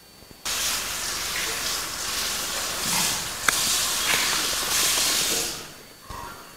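A loud, even hiss that starts abruptly about half a second in and fades out near the end, with one sharp click in the middle.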